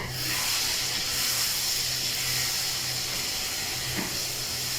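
Chicken and tomato stew sizzling in a hot pot: a loud, steady hiss that starts abruptly at the very beginning.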